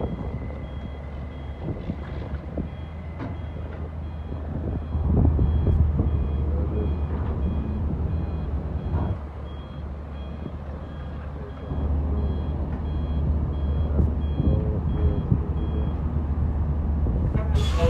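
A heavy truck's reversing alarm beeps at a steady, even pace over the low rumble of diesel engines. The engine noise grows louder about five seconds in and again near twelve seconds, the beeping stops near the end, and a brief loud rush of noise follows.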